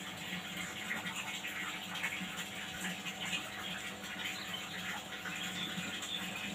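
Hair being combed and handled: soft, irregular rustling and scratching of a comb and fingers through a child's long hair as it is gathered into a ponytail, over a faint steady hum.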